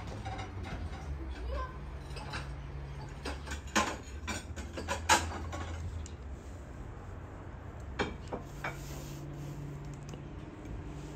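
Scattered small clicks and knocks of yellow cherries being pitted by hand with a bent wire pin over a wooden bowl, pits and stems dropping into the bowl. The sharpest knocks come about four, five and eight seconds in, over a low steady hum.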